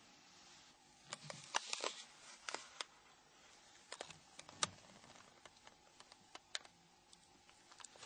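Small, sharp, irregular clicks and ticks as the snap latches of a Nokia N93's capture key cover module are pried open with the SS93 tool, with a run of clicks about a second in and another around four to five seconds in.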